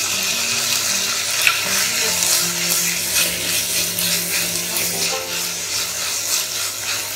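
Green peas sizzling in hot oil and ghee in a stainless steel pressure pan, with a steady hiss, while a wooden spatula stirs and scrapes through them.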